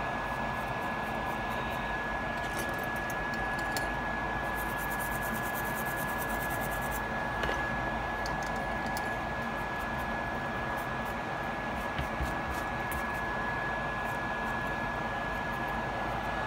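Steady blower hiss with a thin, constant high whine, typical of a hot-air rework station's fan running at the repair bench, with a few faint clicks as the iPhone logic board is handled.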